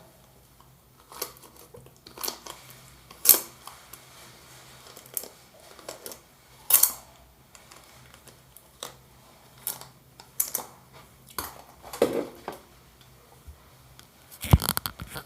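Scattered clicks and short scrapes of a comb and a doll being handled while the doll's damp hair is combed, irregular and a few seconds apart, with a small cluster near the end.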